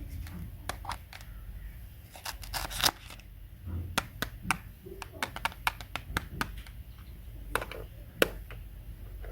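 Close handling sounds: a run of sharp clicks and taps, with a short burst of crinkling about two and a half seconds in.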